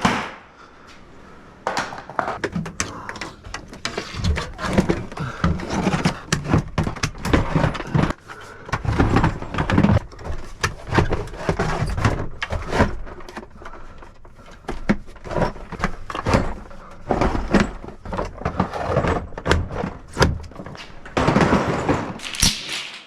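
Irregular knocks and thuds, many in quick succession, with short quieter gaps, like things being handled and moved.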